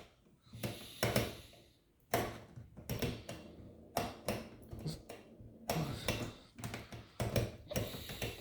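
Irregular clicks and taps from pressing the buttons on a dishwasher's control panel to set the wash program, about fifteen in all.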